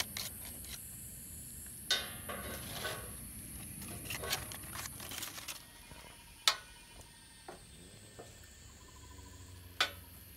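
A knife and wooden tongs knocking against a wooden cutting board as a block of roast beef is moved and sliced: a few sharp taps, the sharpest about six and a half seconds in, over a faint steady hiss.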